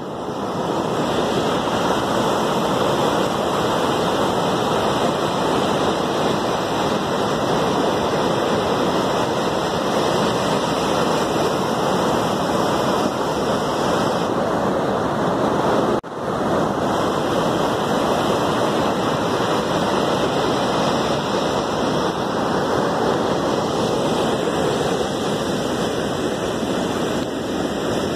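Turbulent white water rushing steadily through a dam spillway channel, a loud, even wash of churning water that cuts out for an instant about halfway through.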